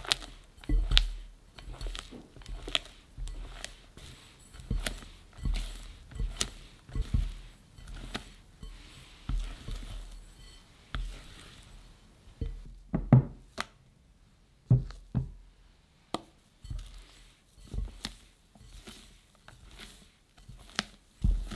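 Silicone spatula folding thick chocolate batter in a glass bowl: irregular soft knocks and scrapes of the spatula against the glass, about one or two a second, with one louder knock a little past the middle.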